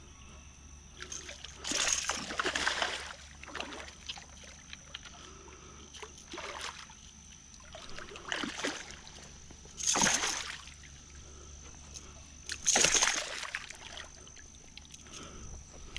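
A hooked bass splashing and thrashing at the water's surface as it is reeled in, in several separate bursts of splashing.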